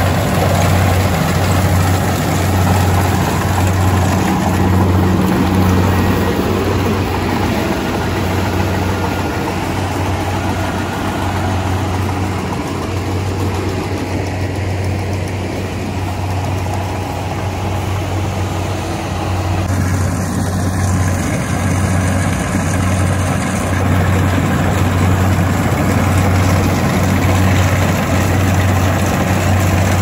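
Kubota combine harvester's diesel engine and machinery running while it cuts rice: a loud, steady drone with a low hum that pulses regularly.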